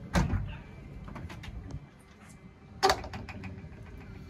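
Heavy stainless steel door being unlatched and swung open. There is a knock just after the start, a few light clicks, and a louder knock about three seconds in.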